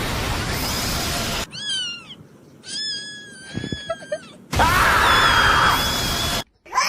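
Cat-meme sound clips: a short bending meow followed by a longer, level meow, with a loud burst of harsh noise before and after them.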